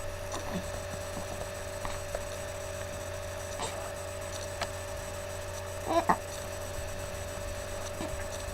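Steady electrical hum in a small room; about six seconds in, a little girl gives one short, sharp voiced catch in the throat, a hiccup.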